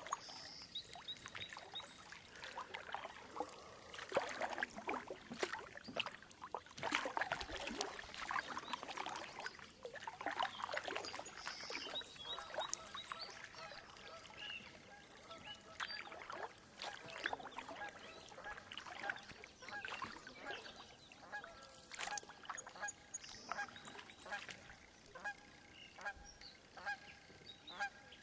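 Geese honking, many calls overlapping in the first half, then a more regular series of short honks.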